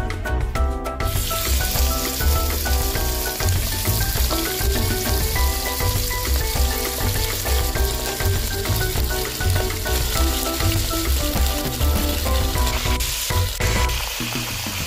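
Pieces of beef sizzling as they fry in hot oil in a pot; the sizzle starts about a second in and continues steadily.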